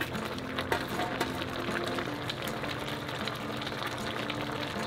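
Background music with held notes, over irregular light clicks as handfuls of sliced onion and green onion drop onto the braising fish in a pot.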